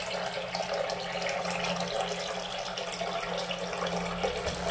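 Steady rushing noise with a low steady hum underneath.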